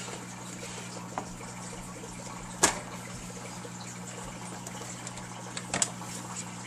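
A few sharp clicks and knocks as plastic and metal parts of an LCD monitor are handled and pried during disassembly, the loudest about two and a half seconds in and another near the end, over a steady hiss and low hum.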